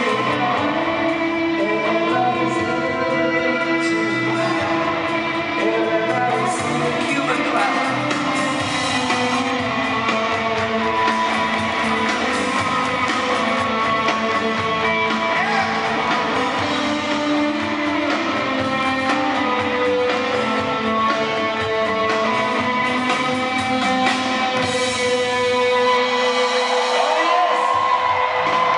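Live rock band playing in an arena: a male singer sings into a microphone over electric guitar.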